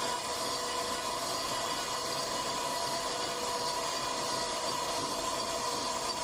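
CNC router running steadily: a constant whine from the spindle over an even hiss, with no change in pitch or level.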